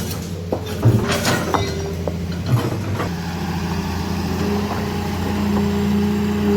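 Heavy diesel machinery engine running steadily, with a few knocks in the first seconds; about three seconds in a steady whine joins the engine.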